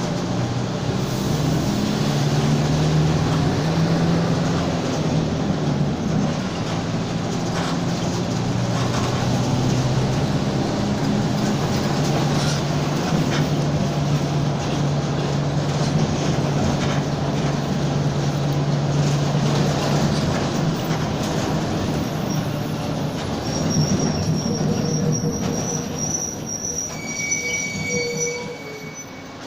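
Mercedes-Benz OF-1722M city bus driving, its engine and drivetrain giving a steady low drone that shifts in pitch now and then, with the growl of a worn driveshaft. Near the end it slows, the sound fades, and a high squeal comes in.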